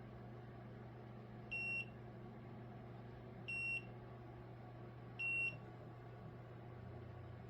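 Car electric kettle beeping three times, short high-pitched beeps about two seconds apart, over a steady low hum.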